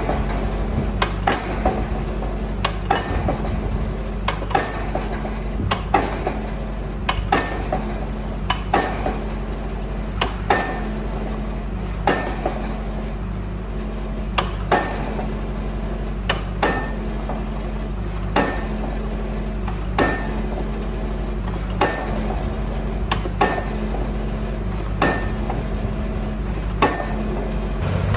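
A heavy machine's engine running steadily, with a sharp metallic clank about every one and a half to two seconds in an even rhythm.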